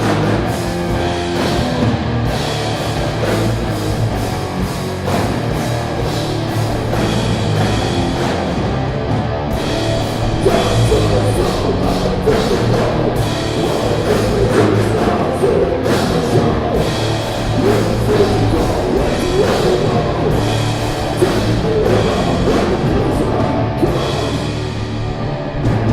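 Stoner metal band playing loud and steady, with electric guitar and a drum kit.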